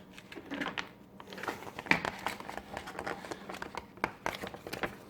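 Paper instruction leaflets being handled and sorted, with irregular crinkling and rustling.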